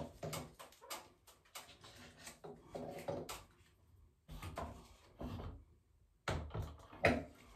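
Adjustable pliers gripping and turning a metal shower head fitting to tighten it: irregular clicks and knocks of tool on metal, with a short pause about five and a half seconds in and a sharper knock near the end.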